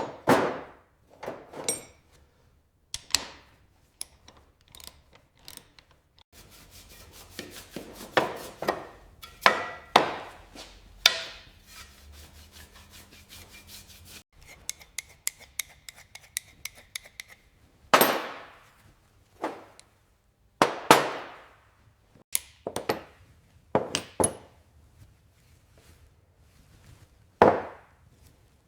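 Hand tools working on a small rusty model car body: a series of separate scrapes and knocks, with a stretch of quick, even rasping strokes in the middle.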